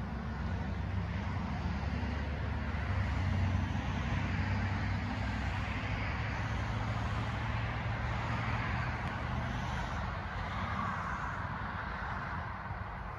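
Motor vehicle noise: a low, steady engine rumble under road hiss that swells in the middle and eases near the end.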